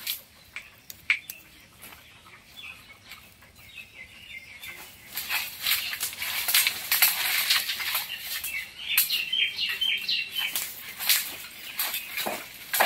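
Rustling and light clattering of dry split bamboo being handled, louder from about a third of the way in, with small birds chirping in short repeated notes about two-thirds of the way in.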